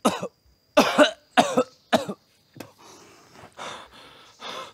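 A man coughing and retching hard in about five sharp bursts close together, then quieter rough breathing; he is sick to his stomach after exertion.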